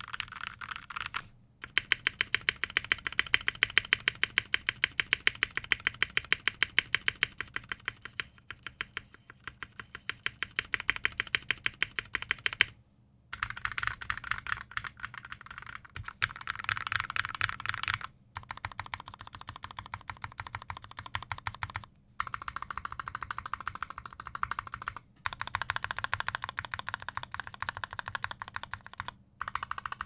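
Typing on a 60% mechanical keyboard with lubed Gateron Yellow Milky linear switches, an aluminium plate and thin PBT keycaps: a fast, even stream of key clicks broken by a few short pauses.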